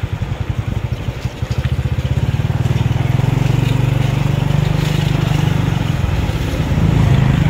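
Small motorcycle engine running while riding. It gets louder about two seconds in and swells again near the end.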